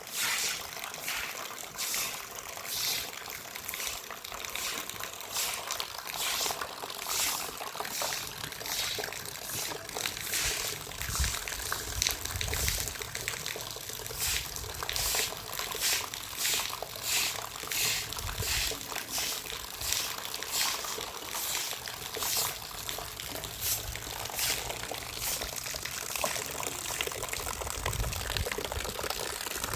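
Water pouring and splashing, with many irregular short splashes over a steady rush.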